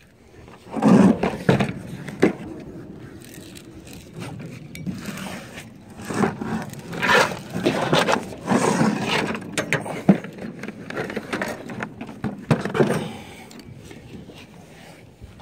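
Hand tools being handled in and around a plastic bucket: irregular scraping, rustling and knocks, with a few sharp clicks, the sharpest about ten seconds in.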